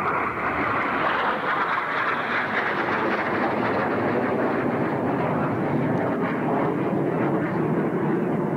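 Red Arrows BAe Hawk T1 jets flying a smoke-trailing display overhead, their Adour turbofans heard as a steady, even jet noise without clear tones.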